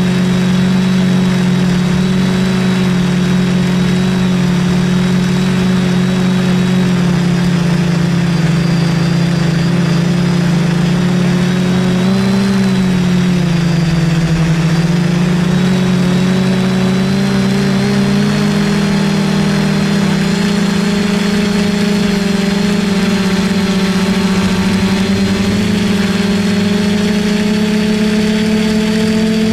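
The four brushless motors and propellers of a DJI F450 quadcopter running in flight, heard up close from a camera on the frame as a loud, steady drone. The pitch wavers around the middle and settles a little higher near the end as the throttle changes.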